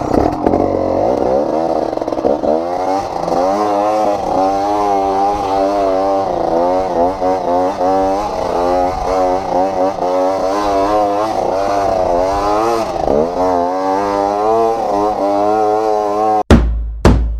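Trail dirt bike engine revving hard, its pitch rising and falling again and again as the rider works the throttle on a climb. Near the end it cuts to loud drum hits.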